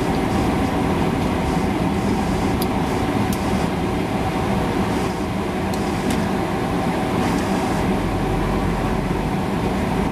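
Steady rumble and rush of a car's cabin noise from the engine and ventilation, with a few faint clicks.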